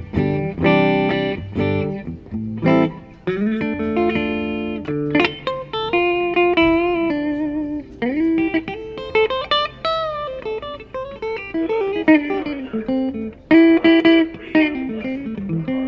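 Gibson Les Paul '50s Tribute electric guitar with humbucker pickups, played clean through a Blackstar tube amp. Chords ring out first, then come single-note lines with string bends and vibrato, and chords return near the end.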